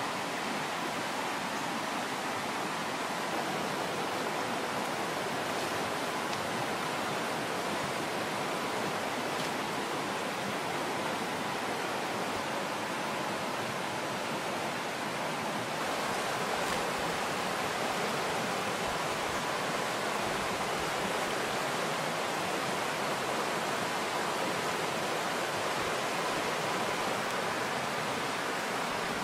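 Steady, even rushing noise that does not change, like running water.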